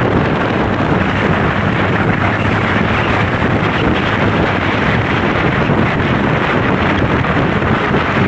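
Wind buffeting the microphone of a moving Honda PCX 160 scooter, a steady rushing noise, with the scooter's engine and road noise running underneath.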